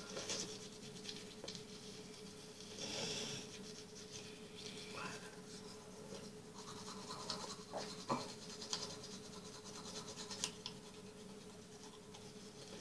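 Electric toothbrush running with a steady hum while brushing teeth, the bristles scrubbing and scratching irregularly against the teeth.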